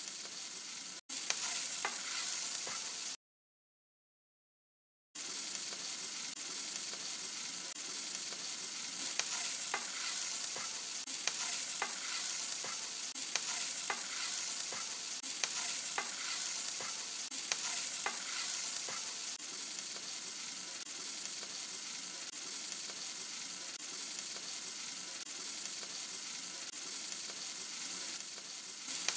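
Tomato-onion masala with mixed vegetables sizzling in a stainless steel kadai while a metal spoon stirs it, with scattered clicks and scrapes of the spoon against the pan. The sound drops out completely for about two seconds near the start.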